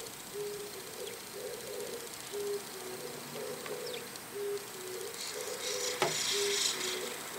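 A dove cooing: a low phrase of short coos that repeats over and over. A few faint high chirps from small birds come in, and about five seconds in there is a louder, scratchy higher-pitched burst lasting a second or so, with a sharp click in it.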